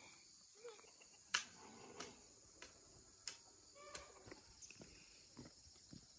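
A steady, high insect chorus with a run of five sharp knocks about two-thirds of a second apart, starting about a second in; the first knock is the loudest, and fainter ticks follow.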